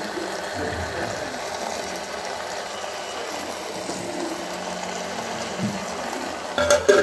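A steady rushing noise, then a quick cluster of metallic clanks near the end as a steel plate is handled against the aluminium cooking pot.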